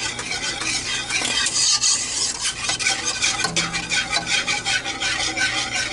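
Homemade play-dough mixture being stirred in an old metal pot on the stove, the utensil scraping and scratching against the pot. The strokes settle into a quick, even rhythm of about five a second around halfway through.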